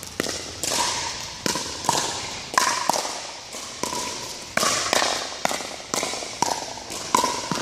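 Pickleball rally: sharp pops of paddles striking the hollow plastic ball, about two a second, each echoing in a large hall.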